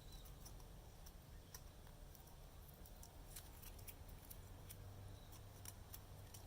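Faint, scattered small clicks and ticks of tape being peeled off a laser-cut stand, over a low room hum.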